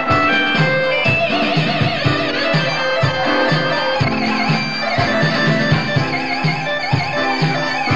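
Lead synth solo played on a Korg RK100 keytar driving a Yamaha DX100 FM synth, with wavering, bent high notes and a quick run of notes about a second in, over an ESQ-1 backing track with a steady beat about twice a second.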